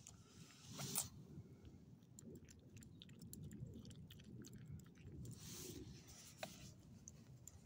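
Small dog chewing and licking food offered from a hand, faint with many small clicks. A brief louder noise comes about a second in.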